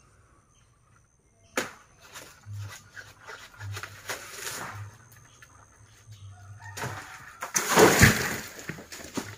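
Rustling and crackling from the crown of a coconut palm as a climber works among the fronds and coconut bunches: a sharp crack about one and a half seconds in, patchy rustling after it, then a louder rustling crash with a thump near the end.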